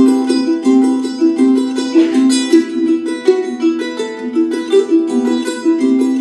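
A ronroco, a large Andean charango with doubled strings, played solo: a quick plucked melody in which a short figure of notes keeps repeating.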